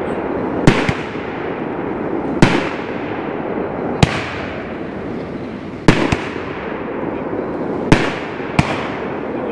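Heavyweight Ariel Gold 500 g 16-shot fireworks cake firing its vertical aerial shots, which burst as peonies. About seven sharp bangs come roughly every one to two seconds, each fading away in an echo.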